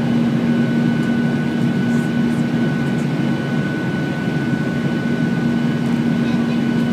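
Boeing 737-800's CFM56-7B jet engines and rushing airflow heard inside the cabin in flight: a steady drone with a constant low hum and a faint high whine.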